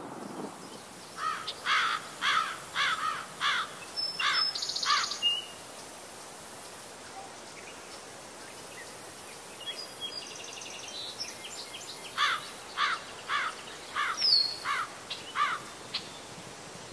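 A bird sings two runs of about seven sharp, down-slurred whistled notes, one near the start and one about twelve seconds in, with a few fainter high bird calls between them. A steady high insect drone runs underneath.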